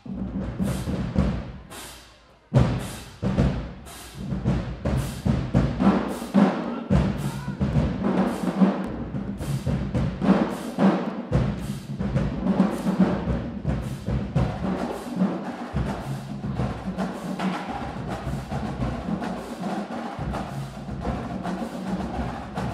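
Marching band drumline playing a cadence: rapid, regular drum strokes with deep booming drums underneath. The playing drops away briefly about two seconds in, then comes back with a hard hit and carries on.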